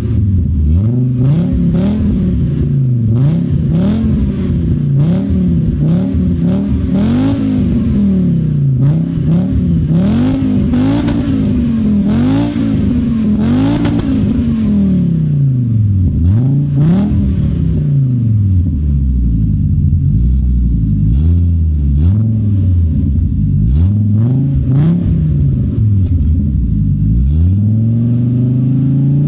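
Fiat Coupé 2.0 20V's naturally aspirated inline-five free-revved through a large aftermarket exhaust: quick blips of the throttle about once a second for the first half, then slower, gentler revs settling back toward idle. Sharp pops crack from the exhaust between the quick revs.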